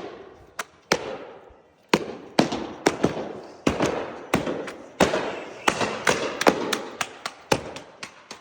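Stamping mats being tamped into fresh concrete: a string of sharp slapping strikes at uneven spacing, one to three a second, each trailing off briefly.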